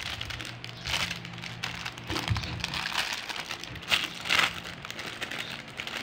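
Plastic packaging crinkling and rustling in irregular bursts as it is handled and opened, with the loudest crackles about four seconds in.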